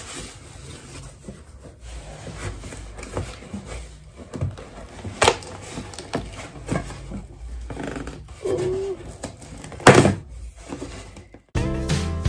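A cardboard shipping box being opened by hand with no tool: rustling, scraping and sharp cracks of packing tape and cardboard, the loudest about five and ten seconds in. Near the end, acoustic guitar background music starts suddenly.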